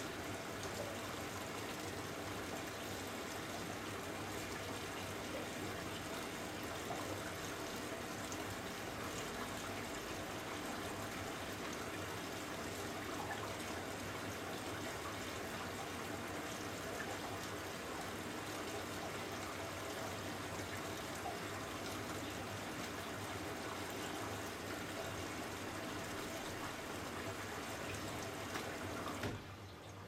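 Water running steadily into a Hoover A3394 Electron washing machine as it fills for its third rinse; the inflow stops a second before the end.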